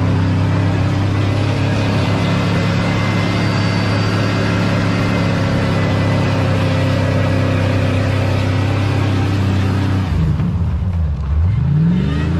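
Old Ford pickup's engine held at high, steady revs as the truck spins its wheels through donuts on snow. About ten seconds in, the revs drop off and then climb back up.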